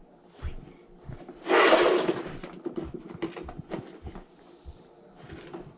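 Handling noise of hands and tools working at a furnace: scattered clicks and knocks, with one loud rushing scrape lasting about half a second, about a second and a half in, over a faint steady hum.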